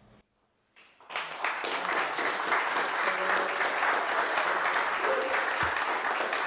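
Audience applause that breaks out about a second in, after a brief hush, and keeps going steadily.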